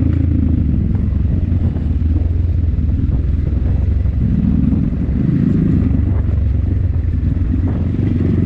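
A Kayo dirt bike's engine running steadily while it rides a rough dirt trail, heard from on board the bike.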